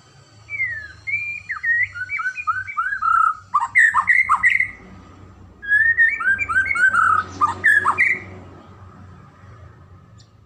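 White-rumped shama (murai batu) singing: two phrases of quick, repeated whistled notes that slur up and down, the second starting about halfway through.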